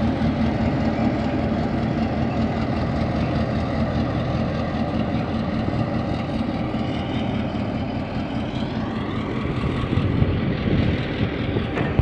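Diesel switching locomotive's engine running steadily as it moves a train of grain hopper cars at low speed. A higher whine rises in pitch about two thirds of the way through.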